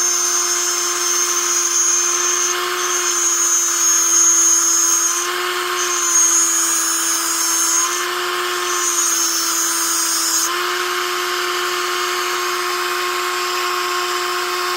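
Handheld tungsten grinder running with a steady electric-motor whine while a 1/16-inch tungsten electrode is ground against its wheel. The high grinding hiss comes in four stretches with brief breaks, then stops about two-thirds of the way through, leaving the motor running free.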